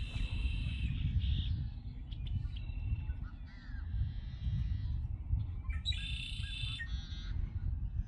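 Birds calling: a harsh call about a second long at the start and another around six seconds in, with a few shorter notes between, over a steady low rumble.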